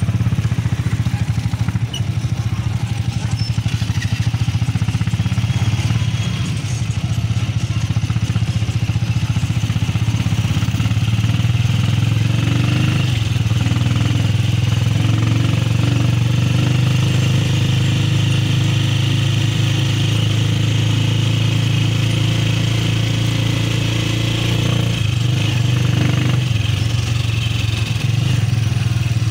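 Motorcycle engine of a tricycle running steadily as it rides along, heard from inside the sidecar cab, with the engine speed shifting a little a few times.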